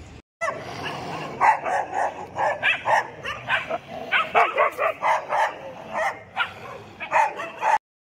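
A group of street dogs barking, many short sharp barks in quick succession and overlapping.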